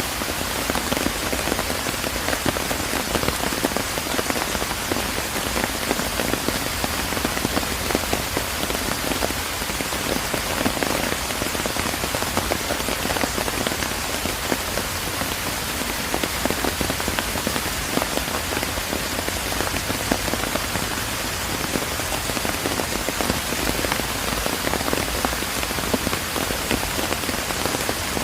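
Steady rain falling, a dense, even patter of many drops that keeps on without a break.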